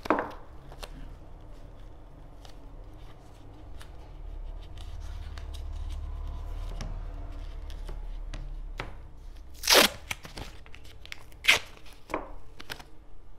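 Masking tape being pulled off the roll and torn into strips, with paper rustling and handling sounds as the strips are pressed onto the corners of a sheet on a wooden board. Near the end come two louder, sharp rips.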